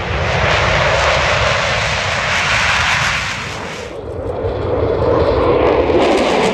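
Boeing C-17 Globemaster III's four turbofan engines running loud at high power for a short-field takeoff, a steady jet noise with a strong low rumble. About four seconds in the sound changes abruptly, the high hiss dropping away and a lower-pitched engine noise taking over.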